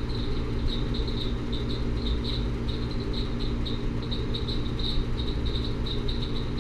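Steady low hum of building machinery in an empty dome hall, several tones stacked together, with short high chirps repeating unevenly a few times a second over it.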